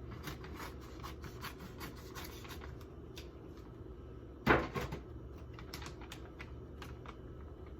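Plastic microwave steam bag being handled and torn open: light crinkling and small clicks, with one loud sharp sound about four and a half seconds in.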